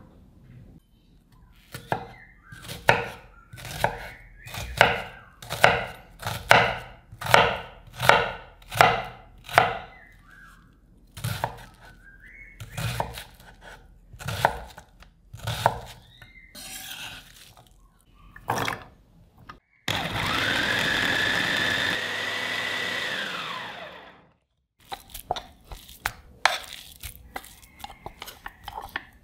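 Chef's knife chopping onion on a wooden cutting board, about two strokes a second for some fourteen seconds. An electric food processor then runs for about four seconds, its motor whine rising as it spins up and dropping as it winds down while it minces raw chicken breast. A few light clicks and knocks follow near the end.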